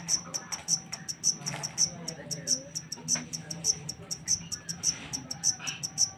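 Black field cricket chirping steadily: a high-pitched, even train of short chirps, about four to five a second.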